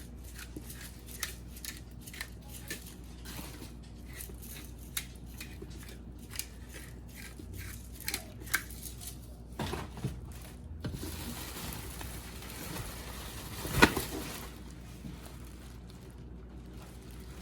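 Kitchen handling noises: scattered small clicks, taps and crinkles as a roasting pan and plastic roasting bag are handled, with one sharp knock about 14 seconds in.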